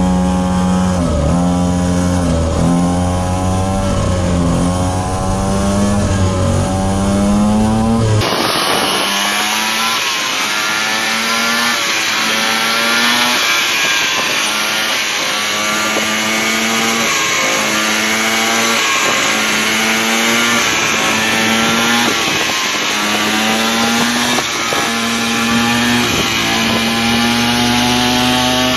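Small two-stroke engine of a kids' mini ATV running under way, its pitch rising and falling about once a second as the throttle is worked. The sound changes abruptly about eight seconds in, from close up on the machine to heard from alongside.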